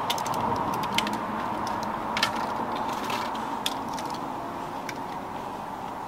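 Scattered light clicks and clinks of fishing tackle being handled, a landing net and a rod, over a steady background hiss. The sharpest clicks come about a second in and just after two seconds.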